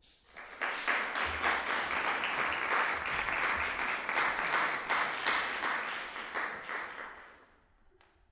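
Audience applauding, swelling up within the first second and dying away near the end.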